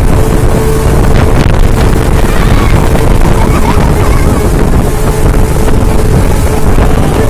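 Speedboat under way: the outboard engine runs at a steady pitch under loud, rushing wind buffeting the microphone.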